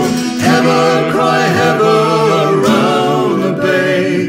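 Male and female voices singing the chorus of a Cornish folk song about pilchard seining, with long held notes.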